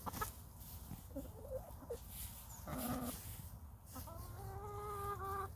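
Hens clucking as they peck at a treat: a few short clucks, a stronger call about three seconds in, and one long call held at a steady pitch near the end.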